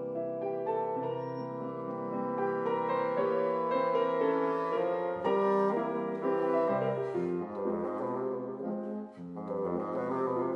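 Bassoon playing a classical melody with piano accompaniment, the notes shifting steadily, with a short dip in the sound about nine seconds in.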